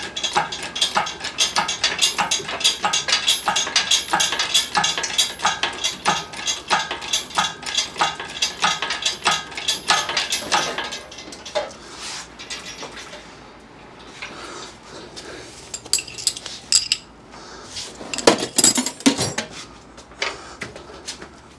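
Engine hoist lifting a Jeep 4.0 inline-six out of the engine bay: regular metallic clicks about twice a second for roughly the first half, then a quieter stretch with a few sharp clinks of metal on metal near the end.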